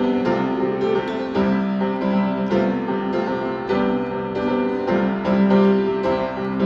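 Piano playing a steady run of held chords, a new chord about once a second.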